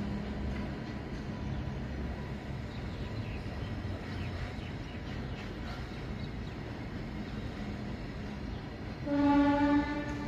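Freight train of covered wagons rolling past: a steady low rumble of wheels on rail. A single short horn blast, a little under a second long and the loudest sound here, comes about nine seconds in.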